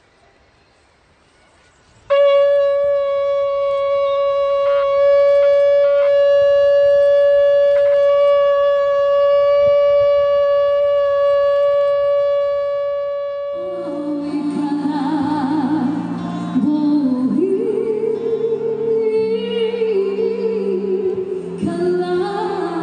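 Shofar sounding one long steady blast, starting about two seconds in and held for roughly eleven seconds. It gives way to background music with a voice carrying the melody.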